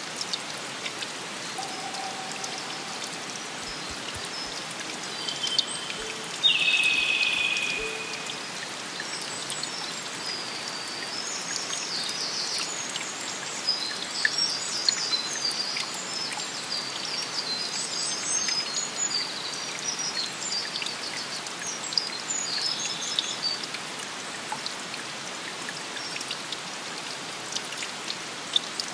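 Steady patter and trickle of water dripping and running in a wet forest, with small birds chirping in scattered high bursts through the middle. A louder ringing tone sets in suddenly about six and a half seconds in and fades over a second or so.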